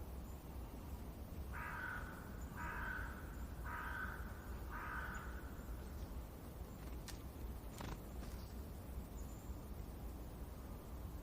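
A crow cawing four times in a row, each caw harsh and about half a second long, over a steady low background rumble of forest ambience. Two short clicks follow a few seconds later.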